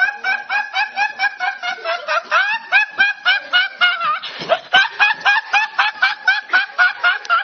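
A high-pitched, rapid-fire laughing meme sound effect: a long run of short repeated laugh syllables, about five a second, each sliding quickly up in pitch.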